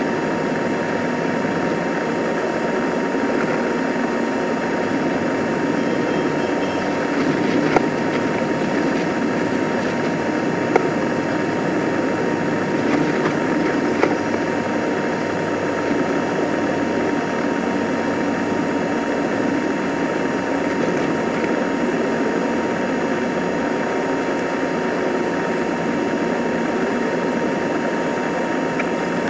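Steady running noise inside a moving passenger train carriage, with a faint constant whine and a couple of sharp clicks about eight and eleven seconds in.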